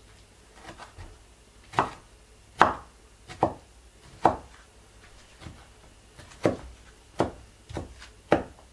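Kitchen knife chopping a peeled tomato on a wooden cutting board: separate sharp knocks of the blade striking the board, about one a second and unevenly spaced.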